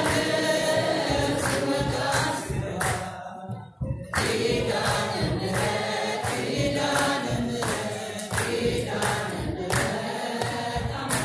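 An Ethiopian Orthodox church choir sings a hymn together, kept in time by sharp hand claps about every 0.7 seconds. The singing and clapping break off briefly a little under four seconds in and then resume.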